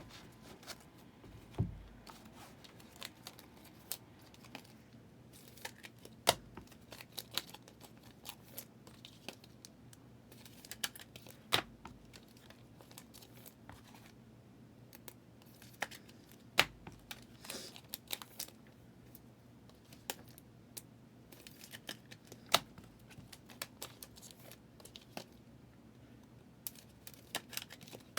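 Trading card packs and cards being handled: foil wrappers crinkling and tearing, with scattered light clicks and a sharper tap about every five seconds.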